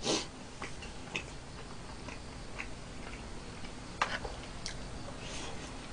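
Quiet chewing with a few light clicks and taps of wooden chopsticks against plastic food containers, the clearest about four seconds in.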